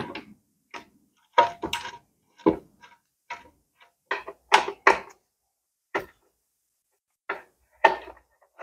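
Scattered metallic clinks and knocks of hand tools and metal parts being handled while a scooter exhaust is bolted on: about a dozen short, sharp strikes at irregular intervals.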